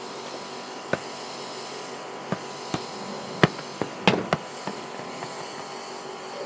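A series of short sharp knocks and thuds from a football being played with on stone patio paving, kicked and bouncing, with flip-flop footsteps, over a steady background hiss. The knocks come irregularly, bunched in the middle, the loudest a little after halfway.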